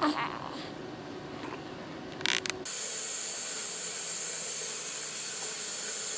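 A newborn baby's faint crying, with a short rattling clatter about two seconds in. Then, from a cut, a steady loud hiss takes over.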